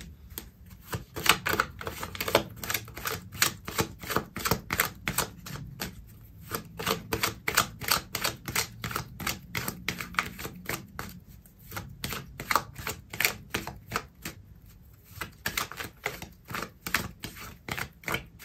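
A deck of oracle cards being shuffled by hand: a quick run of light clicks and slaps, about three or four a second, with short pauses.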